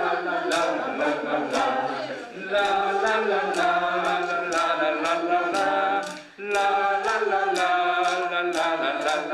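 A group of people singing in unison, with wooden sticks clicked on a steady beat about twice a second. The singing breaks off briefly twice, between phrases.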